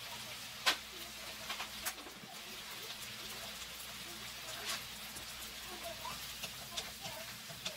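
Peppers, onion and sausage sizzling in a nonstick wok, a steady hiss with scattered sharp pops and crackles.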